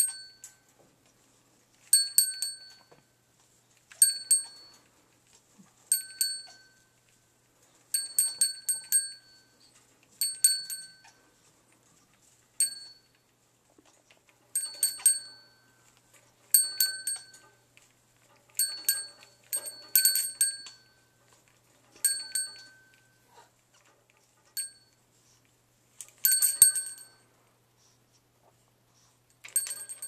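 A small metal bell on a parrot toy jingling in short bursts of several quick rings, about one burst every two seconds, as the toy is shaken.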